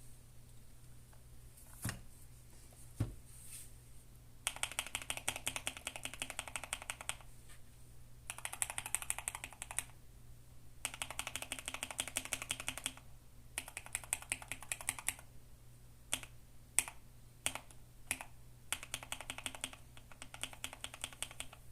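Mechanical keyboard with Akko Radiant Red linear switches being typed on: a few single keystrokes, then quick runs of typing broken by short pauses, with scattered single key presses in between.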